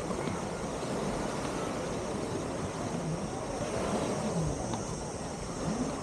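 Busy beach ambience: a steady wash of wind and surf noise with the distant chatter of many beachgoers, single voices rising faintly now and then.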